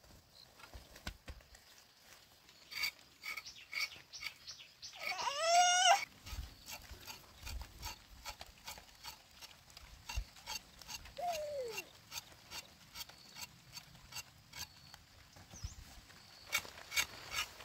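A knife striking and scraping cassava roots as they are peeled, in a run of sharp strokes about two a second. About five seconds in, a loud, high-pitched call lasting about a second rises and then falls, and a shorter call drops in pitch near the middle.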